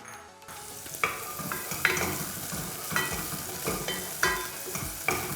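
Chopped onion sizzling in hot vegetable oil as it is sautéed, with a utensil knocking against the pan about once a second as it stirs. The sizzle comes in about half a second in.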